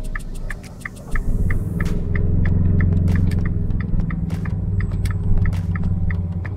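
Fiat 500 engine heard from inside the cabin, its low hum swelling about a second in and then holding steady. A turn-signal indicator ticks about three times a second throughout.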